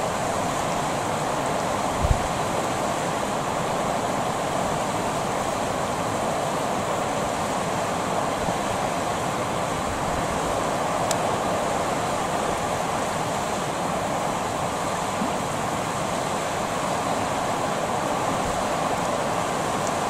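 Steady rush of river water running over shallow rocks, with a brief low thump about two seconds in.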